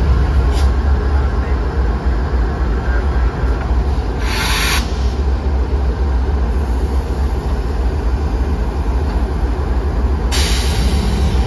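Intermodal freight train rolling by with a steady low rumble throughout. A short hissing burst comes about four seconds in, and another starts near the end.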